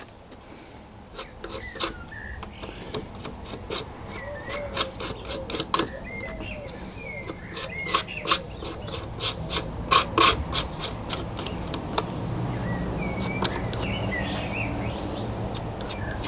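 Light scraping and irregular clicks of a small spatula spreading glue along the model's fuselage formers, with birds chirping in the background. A low steady hum comes in about twelve seconds in.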